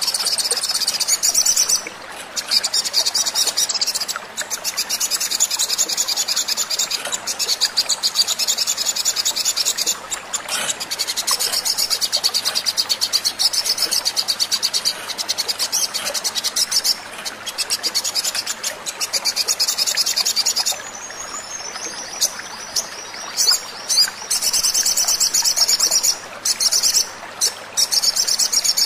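Sunbird song played as a lure: a fast, high-pitched chattering trill that runs almost without a break. It stops briefly a few times, and past the two-thirds mark it falls to a few scattered notes for several seconds before starting again.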